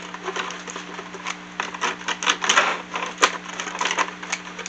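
Irregular small clicks, taps and scraping of fingers handling a plastic RC truck body and its plastic roof-rack light bar, as wiring is fed down through a hole in the roof. A steady low hum runs underneath.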